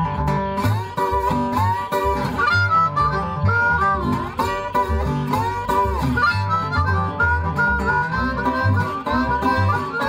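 Blues harmonica playing a solo with bent, sliding notes over a rhythmic acoustic guitar accompaniment.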